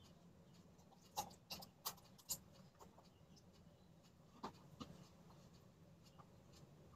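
Faint clicks and taps of a small plastic bowl handled by a baby against a high-chair tray: a quick cluster of taps in the first couple of seconds, two more a little past the middle, with near silence between.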